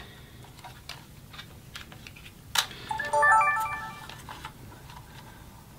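Clicks of a Sony Handycam HDR-CX625 being handled and its LCD screen flipped open, then about three seconds in a short electronic melody of quick stepped beeps: the camcorder's power-on chime, as it switches itself on when the screen is opened.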